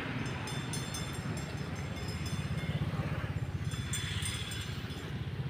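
Wind buffeting the microphone: a low, fluttering rumble with uneven swells in level.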